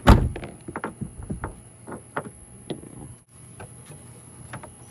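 A loud clunk, then a string of lighter metallic clicks and knocks as a Chevy Avalanche tailgate latch mechanism is worked by hand.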